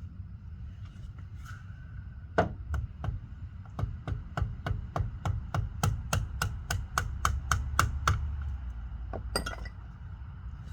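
Hammer blows while the CV axle is knocked loose: one blow, then a quick even run of about four strikes a second for some four seconds, then two more.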